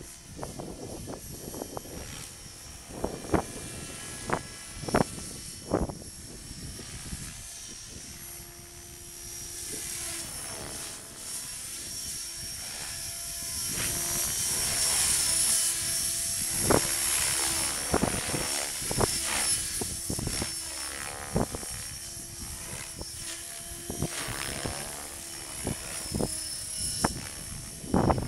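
Mikado Logo 550 SX electric RC helicopter flying aerobatics: a high-pitched whine of motor and rotor that swells as it comes close about halfway through and then fades as it moves off, with frequent short thumps.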